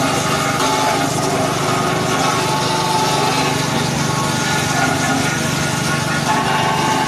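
Multipurpose forage chopper running steadily while cassava stems are fed into it by hand and shredded for cattle feed.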